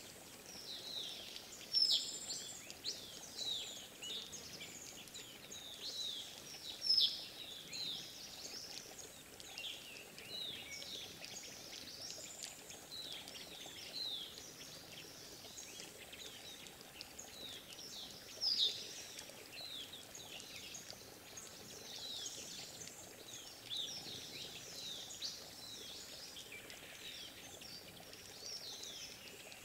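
A mixed flock of small songbirds calling: a continuous run of short, high, downward-sweeping chirps from several birds, a few of them louder, over a steady low background hiss.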